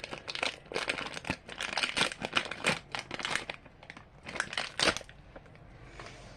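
Plastic slime packaging crinkling and crackling as it is handled and opened, in quick irregular bursts that die down about five seconds in.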